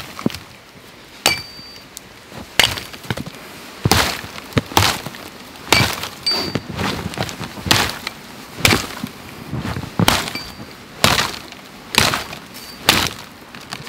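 Hatchet chopping the branches off a felled conifer log: about a dozen sharp chops, roughly one a second, some followed by a short high metallic ring, with branches snapping and rustling between strokes.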